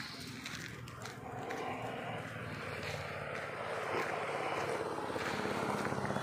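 Motor vehicle engine noise from passing traffic, steady and growing gradually louder.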